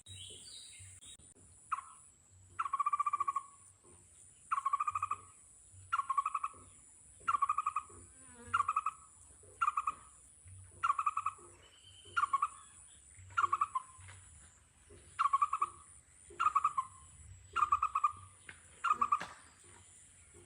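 An animal, most likely a bird, calling over and over: about fifteen short, mid-pitched hoot-like notes, roughly one every second and a bit. A steady high-pitched drone runs behind the calls throughout.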